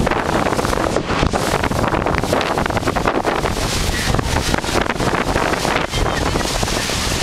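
Strong, gusty storm wind, buffeting the microphone with a continuous rushing and crackling roar.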